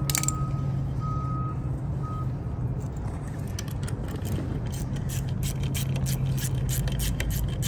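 A steady low engine hum, with a few short high beeps in the first two seconds. From about three seconds in, a rapid scatter of clicks and taps.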